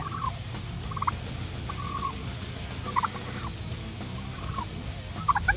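Katahdin sheep and lambs bleating in a pen as they are sorted and herded: a string of short calls, roughly one a second.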